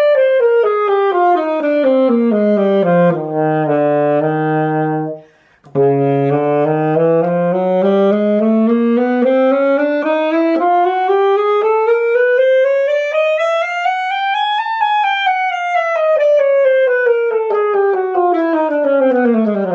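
Yamaha YAS-32 alto saxophone played solo. It runs a scale down to a low held note, breaks off briefly about five seconds in, then climbs note by note to a high note about fifteen seconds in and runs back down.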